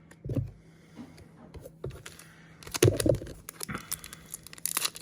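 A couple of soft thumps, then crinkling and tearing of a foil trading-card pack wrapper from about three seconds in.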